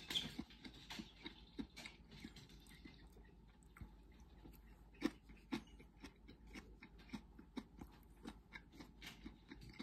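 A person chewing a mouthful of food close to the microphone: faint, irregular wet clicks and smacks, with one sharper click about five seconds in.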